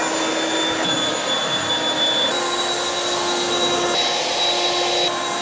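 Echo 58V brushless cordless leaf blower running hard, a steady rush of air with a high fan whine that shifts slightly in pitch a couple of times, as it blows water off a truck's wet paint.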